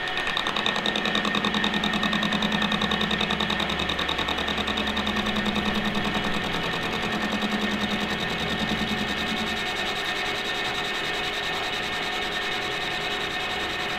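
Lathe running with a four-jaw chuck spinning a square block while a tool in the toolpost faces its end: a steady machine whine with a fast, even pulse. A lower hum drops away about two thirds of the way through.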